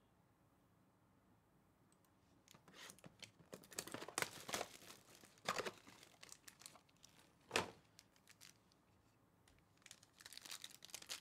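Plastic wrapping on a trading card box being torn and peeled off, crackling in quick bursts with one sharp crackle about seven and a half seconds in; after a short pause the crinkling starts again near the end as a card pack is handled.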